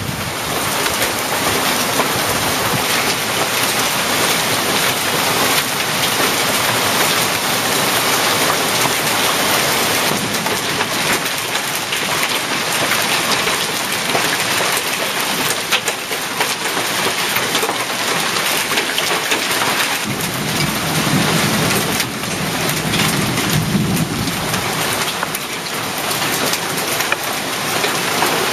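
Heavy rain mixed with hail pelting the pavement, lawn and steps: a loud, steady hiss speckled with many small sharp ticks of hailstones. About two-thirds of the way in, a low rumble of thunder rolls for a few seconds.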